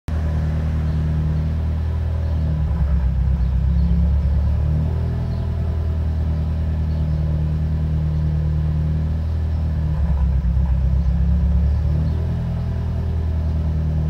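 Subaru WRX's FA20 turbocharged flat-four idling roughly at about 1000 rpm, heard from inside the cabin, its low rumble wavering every couple of seconds. The rough idle is the sign of a failing oil control valve, not the vacuum leak it resembles.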